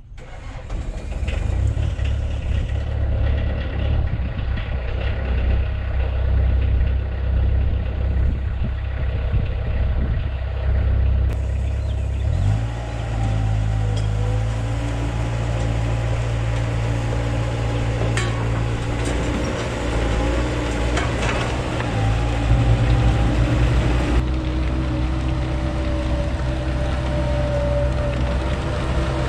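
Bobcat S185 skid steer's diesel engine running. It rises in pitch about twelve seconds in as it is throttled up, then runs on steadily as the machine drives.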